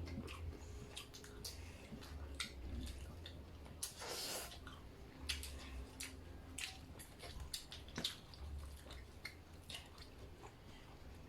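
People chewing and eating rice, sautéed vegetables and fried fish by hand: scattered soft, wet mouth smacks and small clicks, with a slightly longer, louder noise about four seconds in.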